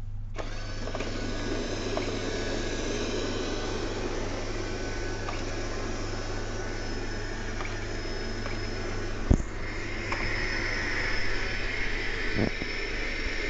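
Xiaomi G1 robot vacuum-mop's suction fan starting up about half a second in and running steadily, its sound shifting higher about ten seconds in. There is a sharp knock around nine seconds in and a softer one near the end.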